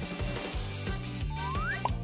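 Background music with a steady beat. About two-thirds of the way in, a short tone rises in pitch for about half a second, followed by a brief upward blip.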